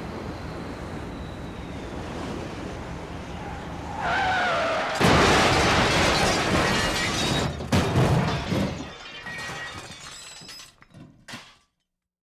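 Wind and road noise inside a moving car, then a tire screech about four seconds in and a loud car crash a second later, with shattering glass and scattering debris that clatters and dies away near the end.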